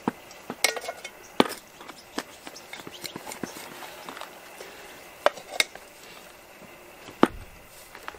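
A plastic hand scoop digging compost out of a plastic bucket and tipping it into a flowerpot: scattered knocks, clicks and scrapes as the scoop strikes the bucket and the pot, with a few sharper knocks about a second in, near the middle and near the end.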